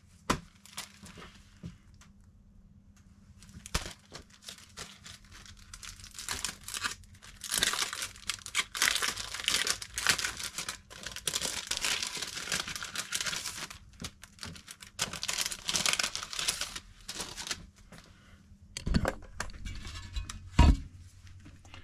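Vinyl windshield stickers being handled and peeled from their paper backing: a crinkling, tearing rustle with many small clicks, strongest through the middle of the stretch. A couple of sharp knocks near the end.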